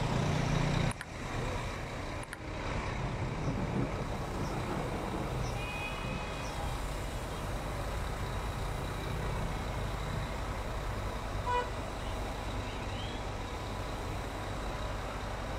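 City street traffic noise, a steady rumble of vehicles, with a short car horn beep about three-quarters of the way through.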